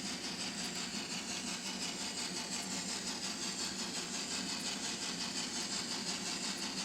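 LokSound DCC sound decoder in an N scale Trix Bavarian S 3/6 steam locomotive, playing steam-engine sound through its tiny onboard speaker: a steady hiss with a fast, even pulsing.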